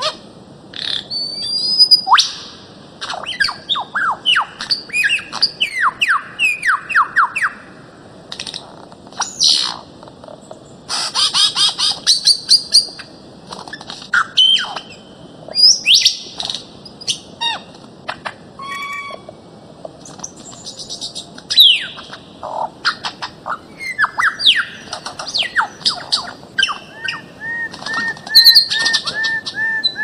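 Birds of paradise calling: runs of loud squawks and quick down-slurred notes with short pauses between them. Near the end comes a rapid series of evenly repeated notes.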